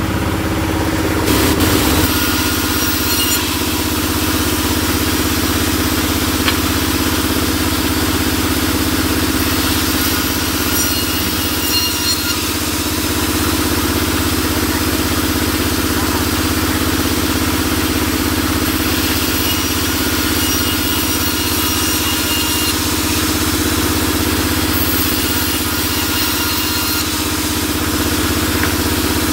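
Sawmill band saw running steadily as boards are fed across its table for resawing.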